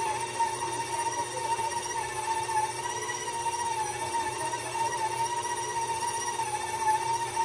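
KitchenAid stand mixer running steadily as its dough hook kneads wheat dough; the motor and gearbox give a steady whine whose pitch wobbles slightly.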